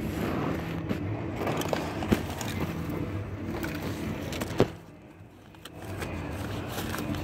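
Belongings being handled and packed into a plastic basket, with a sharp knock about two seconds in and a louder one a couple of seconds later, over a steady low hum of running vehicle engines.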